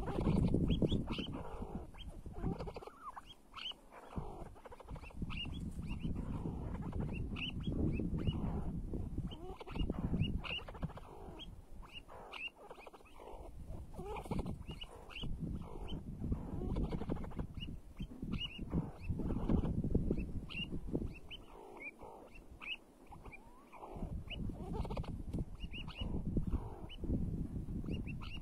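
Chukar partridges calling: many short, high notes in quick runs over a low, uneven rumbling noise.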